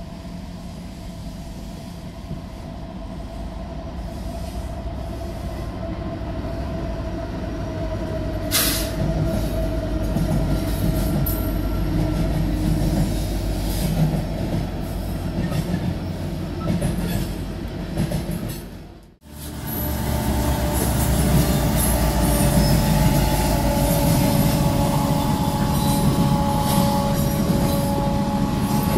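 Freight trains passing: a steady rumble of wheels on rail with steady high tones above it, and one sharp clank about a third of the way in. The sound cuts off abruptly about two-thirds through, and a louder passing train follows.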